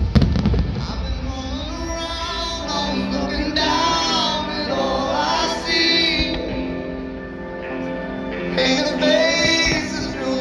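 Music with a woman singing, the soundtrack played along with a fireworks display. A single firework bang comes right at the start.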